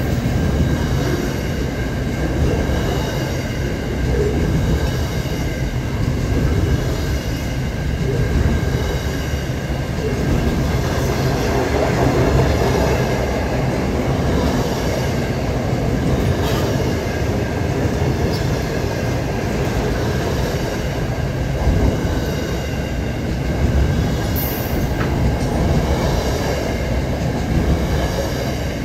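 Double-stack container freight train rolling past: a steady rumble of wagon wheels on the rails, with a high wheel squeal held as steady tones over it.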